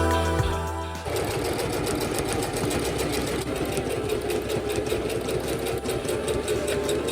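Sewing machine running, stitching with a fast, even run of needle ticks and a steady motor hum. It starts about a second in as background music cuts out.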